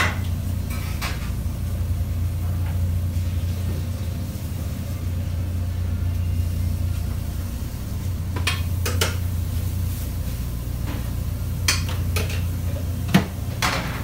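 A few light clinks of dishes and utensils against plates and a steel counter during plating, two close together a little past the middle and two more near the end, over a steady low hum of kitchen equipment.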